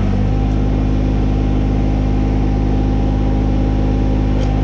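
Kubota BX23S compact tractor's three-cylinder diesel engine idling steadily, a loud, even low drone.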